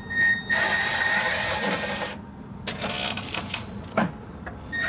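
Cordless impact driver running: a high whine with rapid hammering for about two seconds, a pause with a few sharp clicks, then running again near the end.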